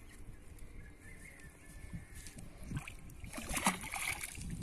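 Soft rustling and small knocks of a cast net being untangled by hand, then a stick thrown into a pond lands with a splash about three and a half seconds in.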